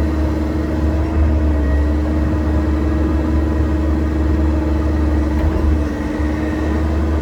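Excavator's diesel engine running steadily under load, a deep rumble with a steady hum above it.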